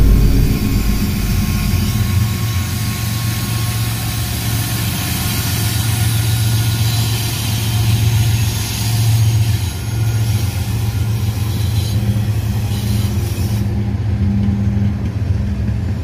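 Diesel freight locomotives passing with a steady low engine drone and rumble, then the train's hopper cars following.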